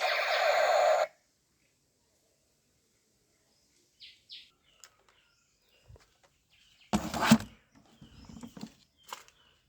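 A battery-powered toy gun buzzes steadily, then cuts off suddenly about a second in. After a near-silent stretch come two short high beeps, then a loud rustle and scattered clicks and knocks as the plastic toy is handled near the end.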